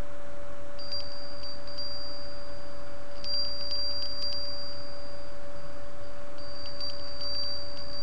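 Steady low hum over hiss, with a thin high-pitched whine that comes and goes several times, accompanied by faint ticks.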